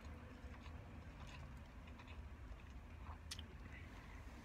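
Faint clicks and light rustles of food and wrapper handling while eating a sandwich, the sharpest click about three seconds in, over a low steady hum inside a car.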